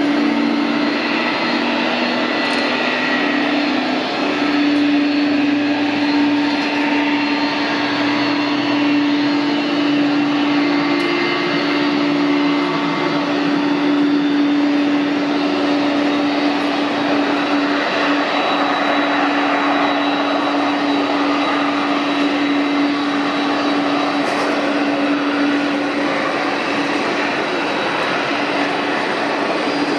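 Jet airliner engine noise: a steady rushing roar with a held low hum and faint high whining tones, unchanging throughout.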